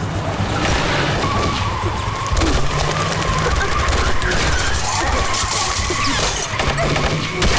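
Film action sound effects: gunfire and objects smashing and shattering in quick succession, over a dense mix with background music.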